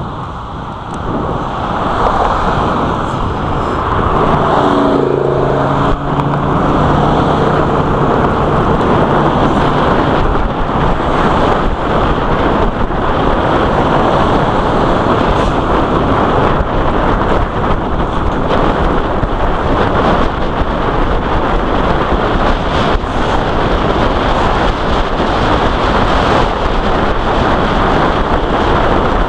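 Wind rushing over the microphone of a camera on a bicycle descending a hill at high speed. It builds over the first few seconds into a steady, loud rush.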